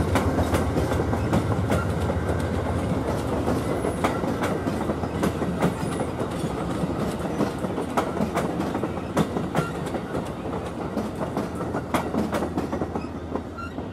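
An Amtrak passenger train's coaches roll past and away, their wheels clicking over the rail joints. The sound fades gradually as the last car goes by.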